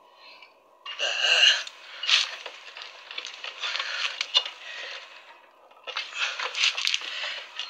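Close handling noise: rustling and scraping with scattered small clicks, in two stretches with a short pause between them, as the copper refrigerant pipes on the fridge compressor are worked by hand.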